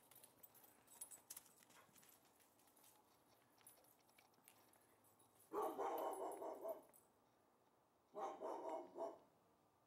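A dog barking in two short runs of barks, the first about halfway through and the second near the end.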